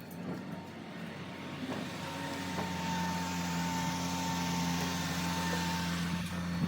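A steady machine hum with a few held tones, under a hiss that grows louder over the first few seconds and then holds steady.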